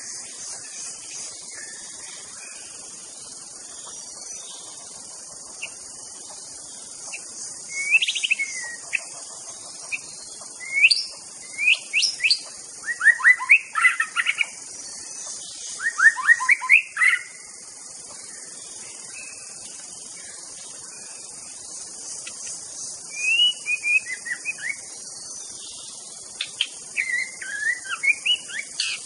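White-rumped shama singing in spells of loud whistled phrases with quick rising and falling notes, separated by pauses, over a steady high hiss. The first spell starts about a quarter of the way in.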